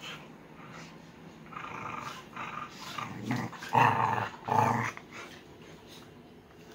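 Dogs growling as they wrestle in play: a run of rough growls that builds through the middle, the two loudest close together, then dies away.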